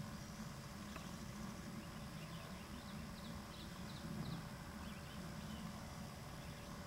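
Faint outdoor ambience: a steady low rumble with a scatter of short, high chirps from small birds through the middle.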